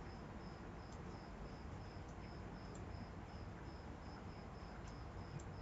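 Faint background hum with a thin, high-pitched chirp repeating evenly about three times a second.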